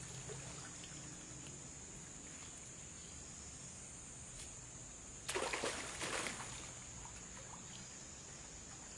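Water splashing once, suddenly and briefly, about five seconds in, over a steady high-pitched hiss in the background.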